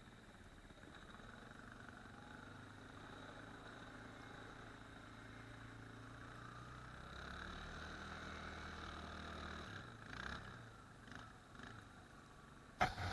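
ATV engine running quietly at low revs, its note rising a little and then fading out about ten seconds in. A few light clicks follow, then a sharp knock near the end.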